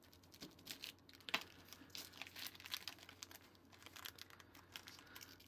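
Faint, irregular crinkling and crackling of a Fruit Roll-Up's clear plastic backing film as a cut-out piece of the fruit leather is peeled away from it.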